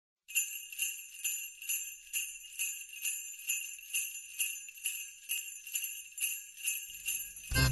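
Sleigh bells shaken in a steady beat, a little over two shakes a second, as a song's intro. The full band, with bass, comes in near the end.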